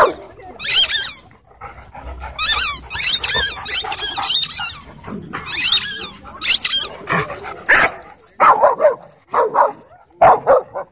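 Dogs barking and yipping while they chase and play-wrestle, in repeated clusters of high-pitched yelps, then shorter, lower barks near the end.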